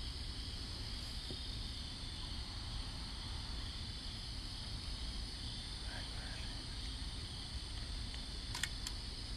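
Steady chorus of night insects, a continuous high buzz over a low background rumble, with a couple of faint clicks near the end.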